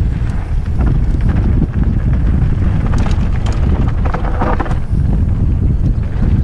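Wind buffeting a helmet camera's microphone as a mountain bike runs down a dirt and gravel trail, with tyre crunch and rattling clicks from stones and the bike, and a harsher scraping burst about four seconds in.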